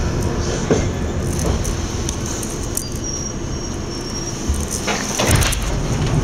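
London Underground Piccadilly line train running on the rails, heard from inside the carriage: a steady rumble, with another train passing close alongside at first. A few sharp clacks come about five seconds in as the train runs into the station platform.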